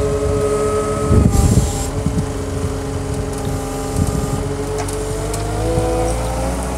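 Compact track loader's engine running steadily under load as its hydraulic grapple lifts a burlapped tree root ball off a flatbed trailer. Low thumps come about a second in and again near four seconds, and the engine's pitch rises slightly near the end.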